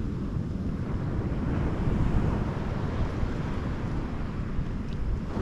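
Ocean surf washing steadily on a beach, with wind buffeting the microphone and making a low rumble.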